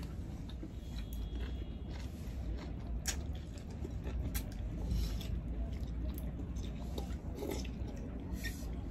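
Two people eating pancit canton noodles close to the microphone: chewing and mouth sounds with scattered sharp clicks and brief noisy smacks, over a steady low hum.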